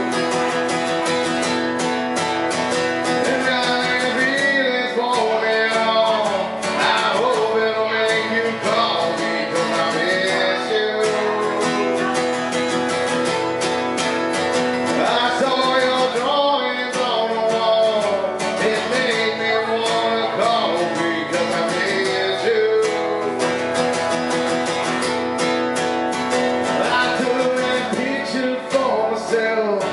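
A man singing to his own acoustic guitar, the voice holding and bending long notes over the guitar's steady accompaniment.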